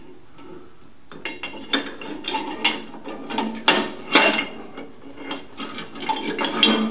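Steel V-block and band saw vise jaw being slid and set in place by hand: from about a second in, a run of irregular metal clanks, clicks and scrapes, some with a short ring, and no motor running.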